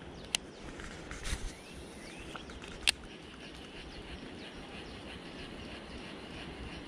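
Two sharp clicks from a baitcasting reel being handled, a small one just after the start and a louder one about three seconds in, over a steady background of insects and birds.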